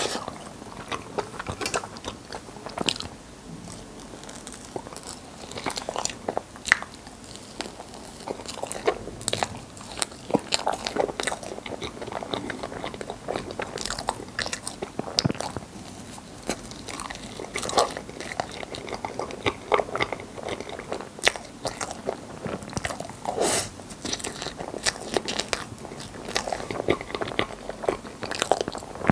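Close-miked chewing of soft, creamy rainbow crepe cake: wet mouth sounds with many short, irregular smacks and clicks.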